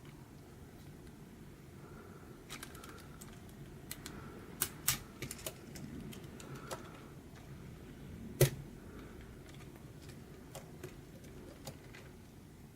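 Scattered sharp clicks and clacks of plastic LEGO Technic pieces being handled and snapped together, the loudest about eight and a half seconds in, over a low steady hum.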